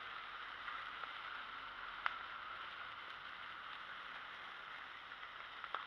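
Handheld sparklers fizzing with a steady hiss, with a couple of sharp crackles, one about two seconds in and one near the end.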